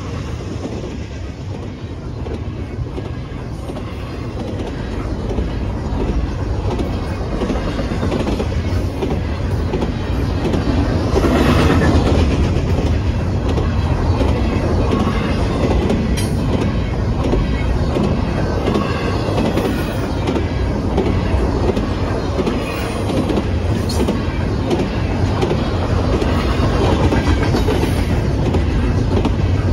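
Double-stack container train of intermodal well cars rolling past: a steady rumble with the clickety-clack of the wheels over the rail joints, growing a little louder partway through, with a brief surge of brighter wheel noise about eleven seconds in.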